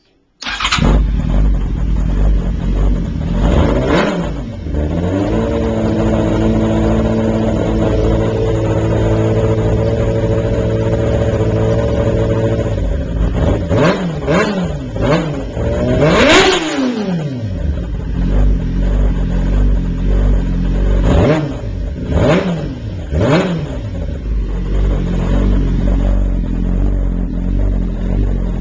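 2005 Yamaha R6's inline-four engine with a Viper aftermarket slip-on exhaust can, starting up and running loud. It holds a steady idle for several seconds, broken by quick throttle blips: one about four seconds in, a cluster of revs past the middle with the highest one there, and three more near the end.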